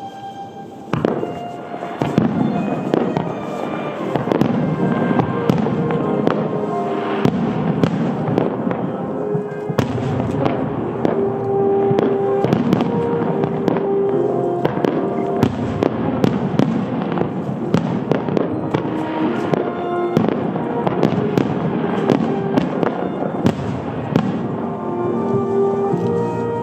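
Starmine fireworks display: a rapid barrage of aerial shells bursting one after another, with booms and crackle, over music played along with the show. The bursts thicken after the first second or so and keep up densely.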